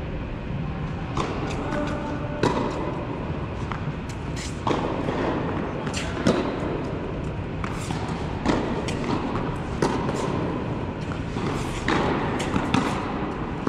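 Tennis rally on an indoor court: sharp racket-on-ball hits and ball bounces, roughly one every one to two seconds, echoing through a large hall over a steady background hum.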